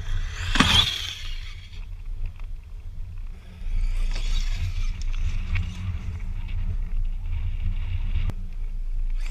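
Wind rumbling on the microphone, with a short gusty rush about a second in. From about four seconds in, a faint, uneven crackle and hiss of an RC truck's tyres and motor on loose gravel joins it.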